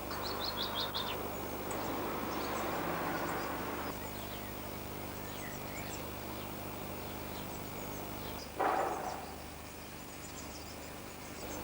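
Small songbirds chirping outdoors: a quick run of high chirps at the start, then scattered calls. Underneath is a rushing noise that stops about four seconds in, and a short, loud whoosh comes about eight and a half seconds in.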